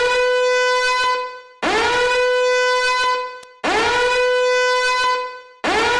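Repeating horn-like alarm tone. Each blast swoops up quickly, then holds one steady pitch for about a second and a half, and it sounds again every two seconds.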